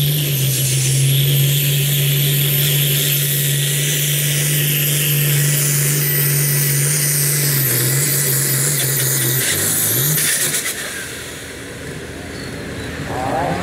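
International Harvester pulling tractor's turbo diesel running hard under load as it drags the weight-transfer sled, holding a steady note with a thin high whistle over it. About ten seconds in, the engine note drops and the whistle stops as the throttle comes off at the end of the pull.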